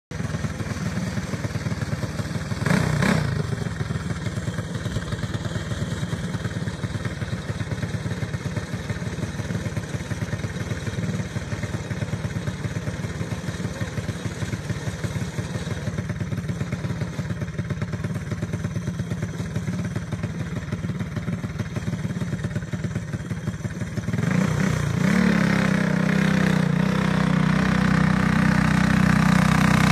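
Go-kart engine running with a steady, fast pulse, a brief louder burst about three seconds in. About twenty-four seconds in it gets clearly louder and keeps climbing toward the end.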